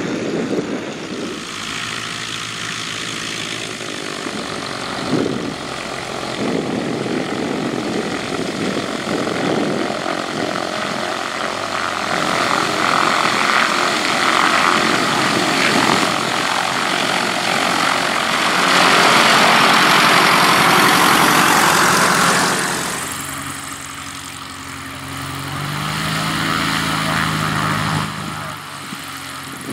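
Light aircraft piston engines and propellers running as the planes taxi. The sound is loudest about two-thirds of the way through, then drops off suddenly. Near the end another engine's note swells briefly.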